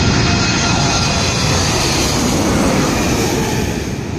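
Boeing 777 twin-engine jetliner passing overhead on landing approach: a loud, steady jet rush and rumble with faint whining tones from its turbofans, easing slightly near the end.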